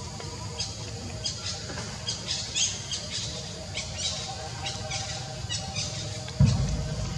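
A run of short, high squeaks and chirps, some sliding down in pitch, over a steady low rush. A single heavy thump comes near the end.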